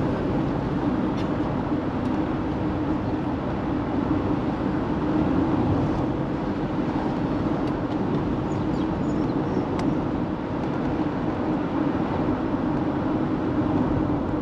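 Steady road and engine noise inside a moving van's cabin, a constant low hum with a few faint ticks.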